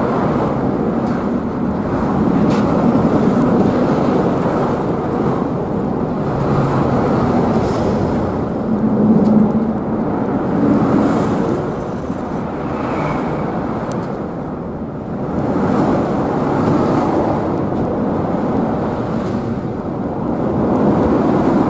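Steady, dense mechanical noise of engines and traffic, swelling and fading a little, with no single source standing out.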